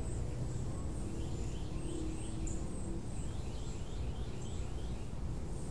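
Outdoor background noise: a steady low rumble with faint bird chirps, including a quick series of short falling chirps about two to four seconds in, over a thin high steady tone.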